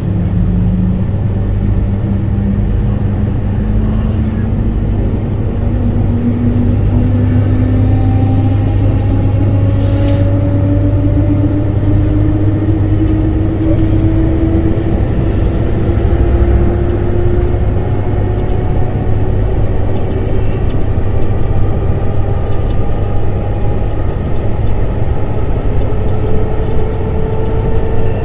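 DC traction motors of an older Luxembourg electric train accelerating: a motor whine rises slowly and steadily in pitch over a constant low hum.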